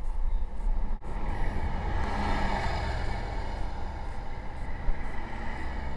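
Wind buffeting a bike-mounted camera's microphone, with a motor vehicle passing close by: its sound swells about two seconds in and then fades as it moves ahead.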